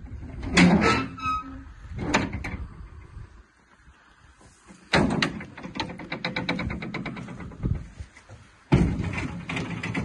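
Rear swing door of a box truck's cargo body being unlatched and opened: metal clanks and scrapes, then, about halfway through, a few seconds of fast rattling clicks.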